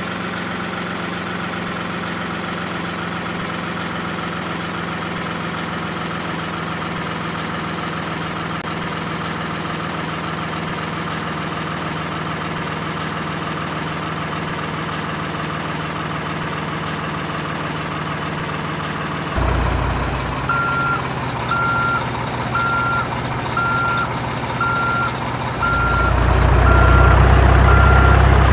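Heavy-vehicle engine sound running at a steady, unchanging pitch. About 19 seconds in it shifts to a deeper rumble and a reversing beeper starts, beeping about once a second, with the rumble growing louder near the end.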